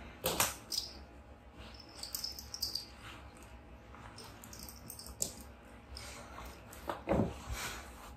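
Towel rustling and rubbing over a wet cat's fur as the cat is dried and squirms free, with scattered handling noises and a louder thump about seven seconds in.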